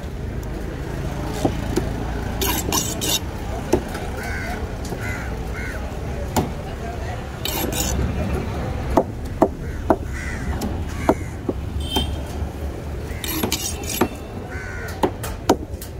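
Heavy curved knife chopping and tapping on a wooden block while a mackerel tuna is cut up: sharp, separate knocks at uneven intervals, coming faster about two-thirds of the way through.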